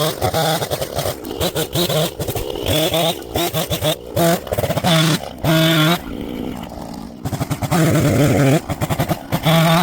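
Husqvarna two-stroke chainsaw running, its revs rising and falling with stretches held at a steady high pitch, with a quieter spell partway through.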